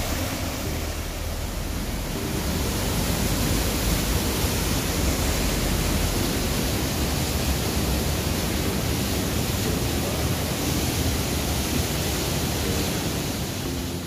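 Mountain stream water rushing and cascading over rocks in a steady, fairly loud rush.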